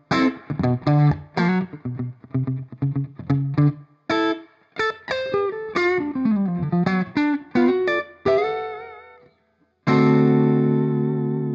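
Electric guitar played through a Strymon Flint V2 tremolo and reverb pedal. It starts with quick repeated picked notes, then a descending melodic line that fades away. A chord struck near the end rings on steadily.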